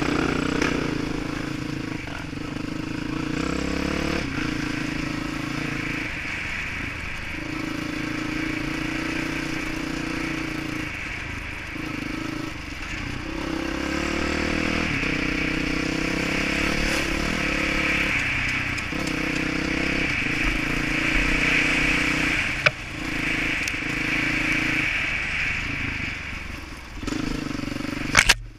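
Dirt bike engine running on and off the throttle, its note rising and falling and breaking with each gear change or let-off. A couple of sharp knocks come near the end.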